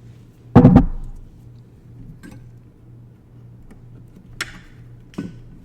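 Hand work with tools and small parts: a loud knock in two or three quick strokes about half a second in, then a few scattered sharp clicks and a brief clink, over a low steady hum.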